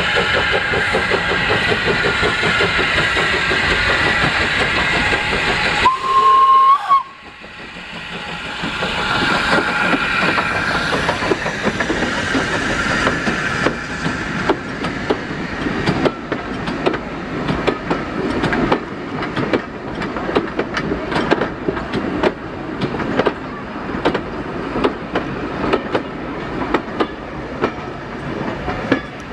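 Avonside saddle tank steam locomotive standing with steam hissing, then one short steam whistle about six seconds in, the loudest sound. The locomotive then pulls away, and vintage coaches roll past, their wheels clicking unevenly over the rail joints.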